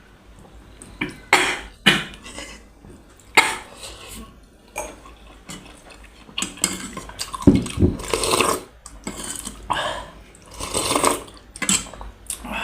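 Eating at a meal table: cutlery clicking against a plate several times, with noisy stretches of eating in between.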